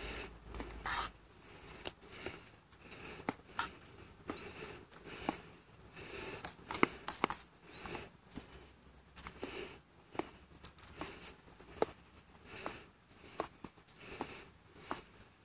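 Metal spoon stirring a thick rice dish in a metal camping pot, with irregular clicks and taps as it knocks and scrapes against the pot.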